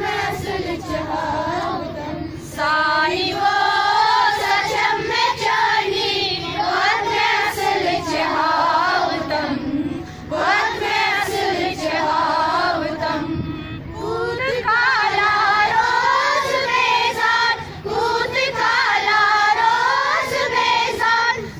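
Schoolchildren and women singing a prayer together in unison, in long sung phrases with short pauses between them.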